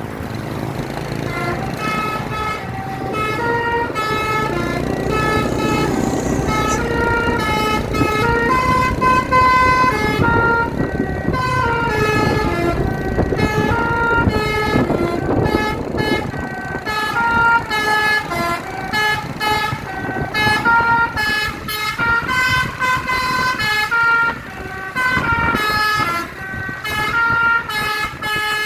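Bus 'telolet basuri' musical air horn playing a sholawat melody, one pitched note after another stepping up and down, over the bus engine's low running rumble.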